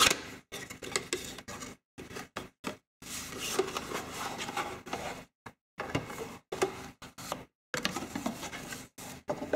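Cardboard box being opened and handled: the flap and inner sleeve scraping and sliding against the carton in irregular rustling bursts with short gaps.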